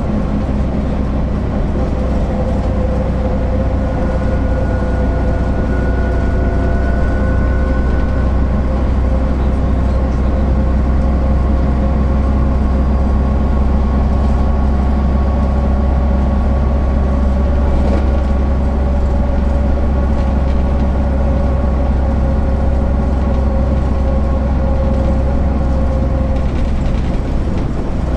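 Diesel engine of a MAN NL 262 (A10) low-floor city bus, running steadily with a deep low hum. Its pitch drifts slightly up through the middle and eases off near the end.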